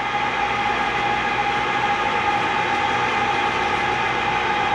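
Overhead tarp crane's hoist running steadily as it raises the tarp, a constant whine over a steady mechanical hum.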